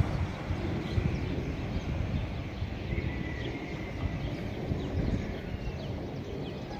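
Outdoor morning ambience: a low, uneven rumble with faint birds chirping now and then through the middle.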